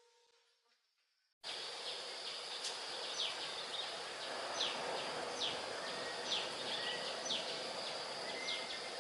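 Outdoor ambience that cuts in abruptly about a second and a half in: a steady hiss with a small bird repeating a short, sharp falling chirp roughly once a second, alongside short rising notes. Before that, a fading ring dies away into near silence.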